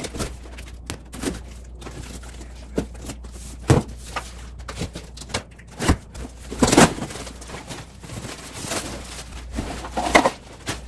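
Cardboard shipping box being handled and opened: irregular knocks, scrapes and rustles, the loudest a few seconds past the middle, then the rustle of a folded camp chair in its plastic bag being pulled out near the end.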